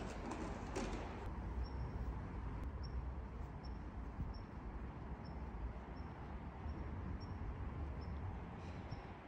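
Quiet outdoor ambience in the snow: a steady low rumble, with a small bird's short high chirp repeating about every half second. A few soft steps come in the first second.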